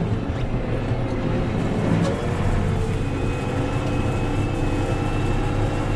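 New Holland T5 tractor's diesel engine running steadily under load while pulling off in second gear with the PTO driving a fertilizer spreader. A faint high whine comes in about three seconds in.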